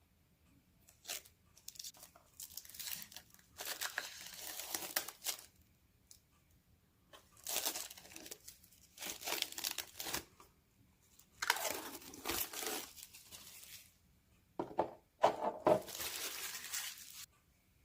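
Protective film and window masks being peeled off a painted, vacuum-formed PETG RC car body, in about five pulls of one to two seconds each with short pauses between them.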